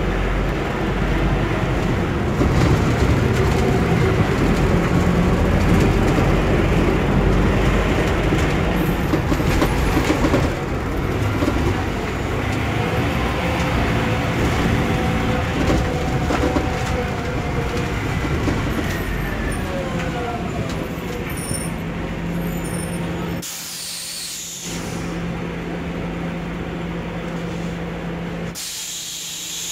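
Scania K280UB city bus on compressed natural gas, heard from inside the passenger cabin. The engine and road noise build and run loud for the first ten seconds, then a whine falls steadily in pitch as the bus slows, and the engine settles to a steady idle. Near the end come two short hisses of air from the bus's pneumatic system.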